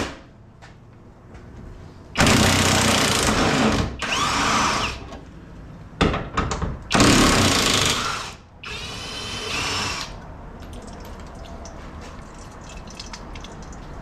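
A power tool on a socket, loosening the crossmember and transmission-mount bolts, runs in about four bursts of a second or two each over the first ten seconds. Some bursts carry a changing whine. Sharp clicks come in between, and faint clicks of tools follow.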